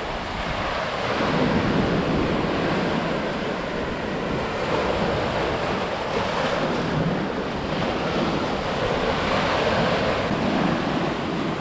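Heavy sea surf breaking and washing up the shore in slow, repeated swells at a rising tide, with wind buffeting the microphone.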